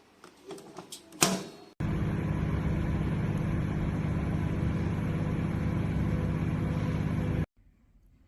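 Sharp R-20A microwave oven running with a steady hum, starting just under two seconds in after a few clicks and one sharp click, and stopping abruptly near the end.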